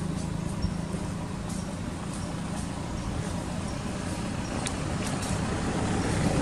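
Steady low engine hum and rumble, growing louder near the end.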